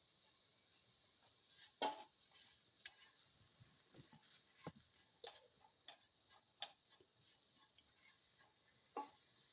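A cooking utensil knocking and clicking against the pan as salt is stirred into the sautéing vegetables. About seven light, irregular knocks, the loudest about two seconds in.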